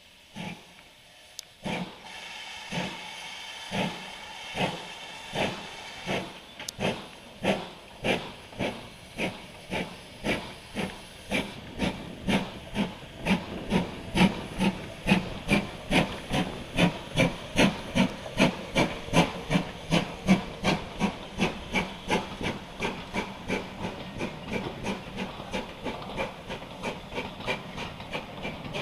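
GWR steam locomotive pulling away under load: chuffing exhaust beats that start about a second apart and quicken to roughly two and a half a second, over a steady hiss of steam. The beats grow louder toward the middle and ease off a little near the end as the engine draws away.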